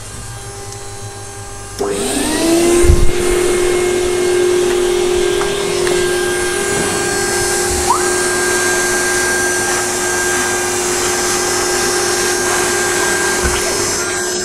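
A shop vacuum switches on about two seconds in. Its motor spins up to a steady whine over a loud rushing of suction as the hose nozzle clears sawdust from freshly cut plywood. Before it starts there is a quieter steady hum.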